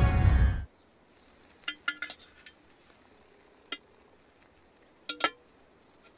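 A music sting ends, then plates and cutlery clink at a meal table: a quick cluster of light, ringing clinks about two seconds in, a single one near the middle, and two more about five seconds in.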